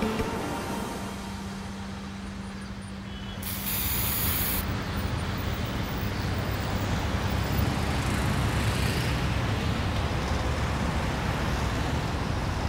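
Street traffic ambience: a steady low rumble of vehicles with a constant low hum. A short, sharp hiss sounds about three and a half seconds in, after which the rumble grows louder.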